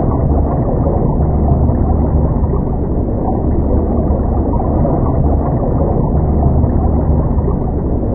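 Underwater ambience: a steady muffled rumble and murky water noise as heard below the surface, with no high end.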